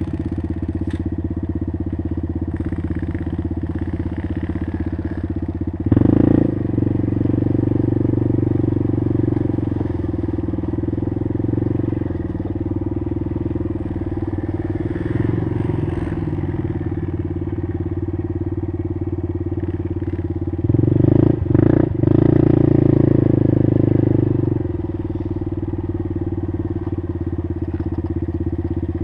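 Small ATV engine running steadily while riding a trail, with two louder stretches as the throttle opens: one about six seconds in, and another from about 21 to 24 seconds.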